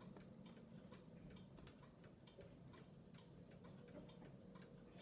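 Faint, even ticking about twice a second over near-silent room tone.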